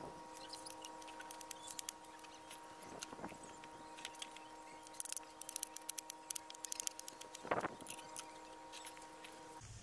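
Knife slicing through tomatoes and vegetables on a cutting board, a quick run of light taps and clicks that is busiest in the second half. A steady hum runs underneath and cuts off just before the end. Three short call-like sounds stand out: one at the start, one about three seconds in, and the loudest near the end.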